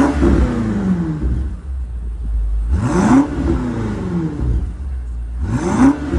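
BMW M60i's twin-turbo V8 revved through a dÄHLer aftermarket exhaust in three quick throttle blips about three seconds apart. Each one rises sharply and falls back to a steady idle rumble.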